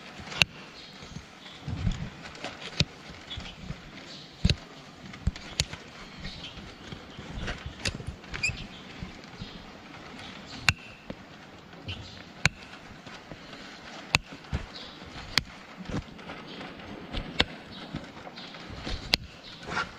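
Hoof nippers snapping through the wall of a laminitic horse's hoof during a trim: irregular sharp snaps, roughly one a second.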